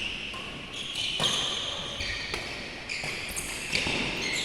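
Badminton rally in an indoor hall: several sharp racket strikes on the shuttlecock, mixed with high squeaks of court shoes on the floor.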